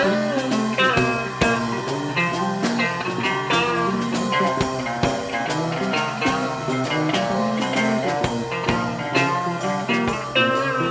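Music: a rock or blues band with electric guitar over drums.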